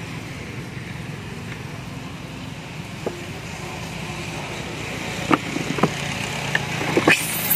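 Sharp taps and knocks as macaques handle a parked scooter's plastic headlight housing, several in the second half, over a steady low hum.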